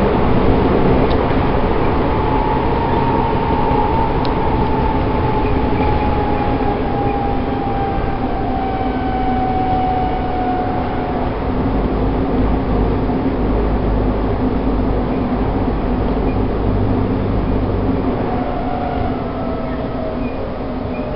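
Interior running noise of an Odakyu 2000 series electric train car: a steady rumble of wheels on rail. Over it the traction motor's whine falls gradually in pitch for about the first ten seconds, and again near the end, as the train slows.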